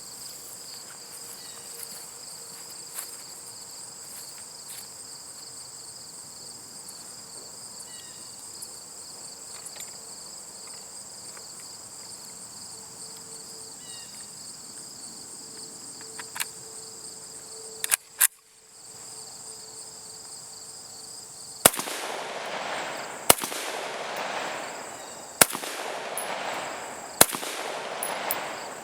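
Insects chirring steadily, then a Saiga 223 AK-pattern semi-automatic rifle firing .223 Remington rounds: four single shots roughly two seconds apart near the end, each with an echoing tail. A couple of sharp clicks come a few seconds before the first shot.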